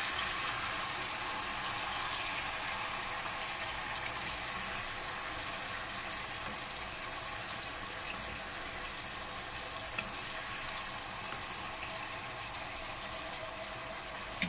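Chicken adobo simmering and sizzling in a frying pan in its soy-vinegar braising liquid, a steady hiss with a few faint clicks as a wooden spatula stirs the pieces.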